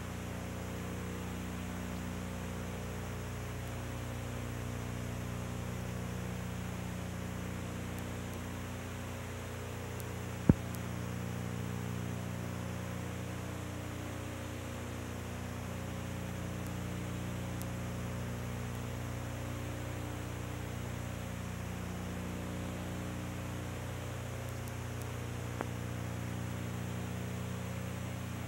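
Steady electrical hum with hiss, the noise of an old film soundtrack transferred to video, with one sharp click about ten seconds in and a faint one near the end.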